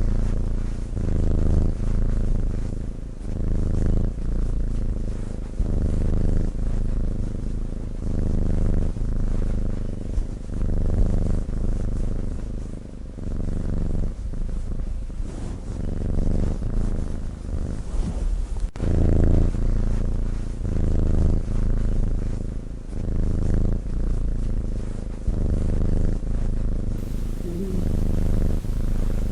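Sleeping cat snoring, a low rumble that swells and fades with each breath, about once every second or two.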